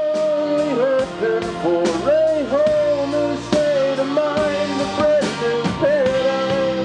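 Live Americana rock band playing: a male voice sings long held notes that bend from one to the next, over drums, bass guitar and a Nord Electro 4 keyboard, with a steady beat.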